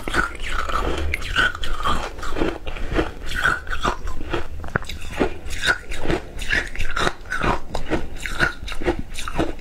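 A person biting and crunching shaved ice, chewing it in quick, irregular crunches.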